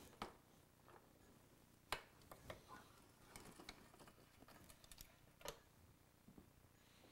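Faint, irregular clicks and light taps of hand tools working on bolts, the sharpest about two seconds in.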